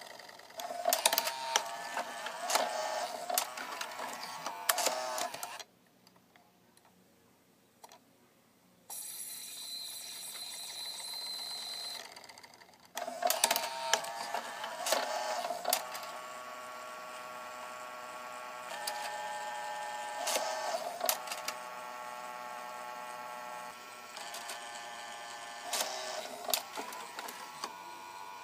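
Sony 10-disc CD changer mechanism running with its cover off: small motors whirring and gears clicking as it shifts discs and spins one up. It goes in several runs with short pauses, the longest a near-silent gap about six seconds in. The owner finds that the unit cannot keep the disc spun up.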